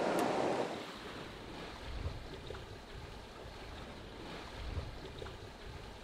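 Waves washing around a sailing yacht under way in a rolling sea, with wind: a steady rushing of water, a little louder in the first second, over a low rumble.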